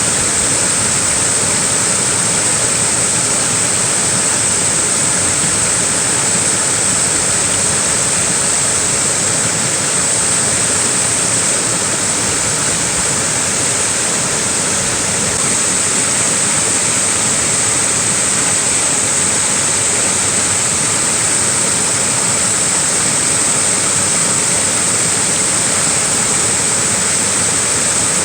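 Small waterfall pouring steadily, a continuous even rush of falling water with a bright hiss.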